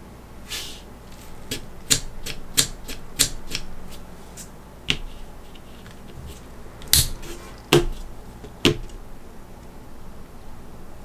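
Small plastic and metal action-figure weapon parts clicking as they are handled, pulled apart and set down on a mat: a quick run of sharp clicks in the first few seconds, then three louder single clicks a little past the middle.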